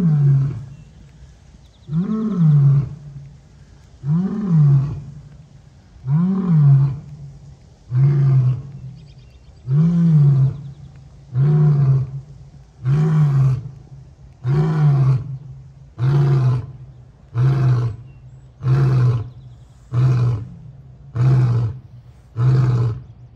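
Lion roaring in a long bout, a series of deep, loud roars, each rising then falling in pitch. They come about every two seconds at first, then grow shorter and quicker, about one a second near the end.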